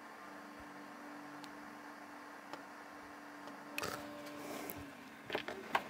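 Quiet soldering-bench sounds: a faint steady hum, then a brief hiss with a sharp start about four seconds in as the soldering iron meets the fluxed joint, and a few light clicks of parts being handled near the end.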